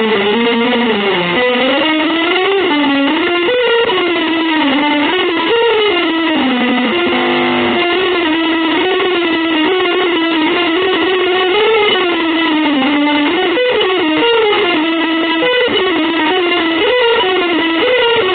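Electric guitar playing a continuous, winding melodic line of sustained notes that glide up and down without a break.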